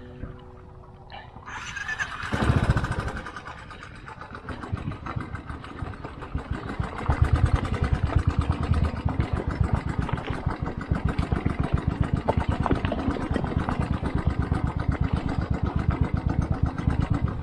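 Motorcycle engine starting about two seconds in with a brief rev, then running with a fast, even pulse that grows louder about seven seconds in.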